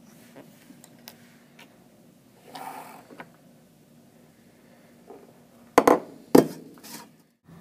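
Handling noise of an aerosol air duster can: faint clicks, a short rustle about two and a half seconds in, then two sharp, loud knocks about half a second apart near six seconds, followed by a softer knock.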